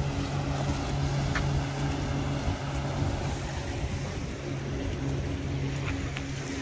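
Motorboat engine humming at a steady pitch, fading in and out over a constant rush of noise.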